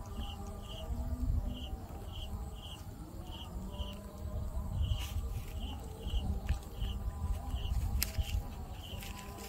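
An insect calling in short, regular chirps, about two a second, over a low rumble.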